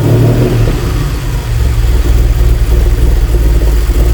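DeLorean DMC-12's PRV V6 engine idling steadily on its first runs after an engine swap, its ignition timing just set to about 12 degrees advance; to the owner it seems to be running a bit rich.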